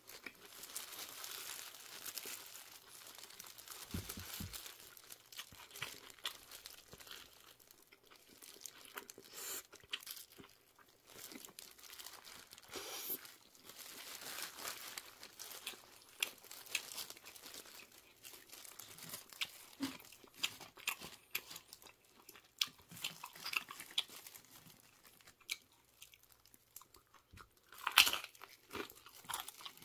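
A person chewing and crunching food close to the microphone, with irregular crackling and some crinkling of the paper wrapper under gloved hands. One louder crackle comes near the end.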